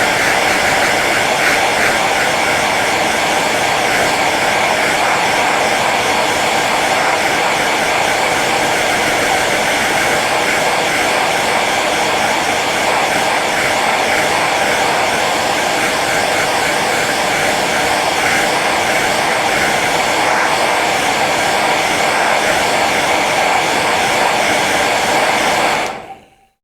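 Hair dryer running on its low setting: a steady rush of blown air over the motor's hum, fading out quickly near the end.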